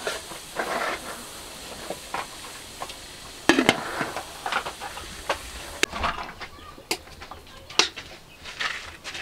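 Aluminium food steamer hissing steadily with steam, with a loud metal clank about three and a half seconds in as the lid goes on. The hiss drops away after about six seconds, and a few sharp knocks follow.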